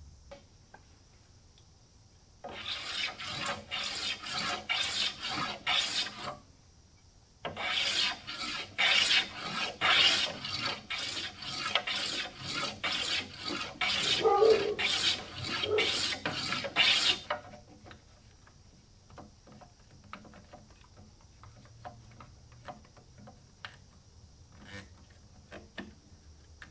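Bench hand plane taking rapid strokes along the edge of a wooden door frame, shaving it down. The strokes come about two a second in two runs, a short one and a longer one of about ten seconds. After that there are only faint light clicks.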